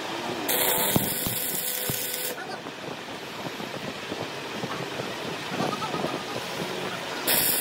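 Two bursts of loud hissing, the first starting about half a second in and lasting about two seconds, with a few sharp knocks during it; the second starts near the end. Steady noise runs between them.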